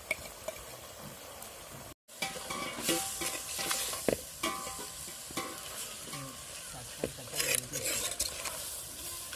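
Chicken pieces sizzling in oil in an earthenware pot while being stirred, with a spoon scraping and knocking against the pot. A brief break about two seconds in.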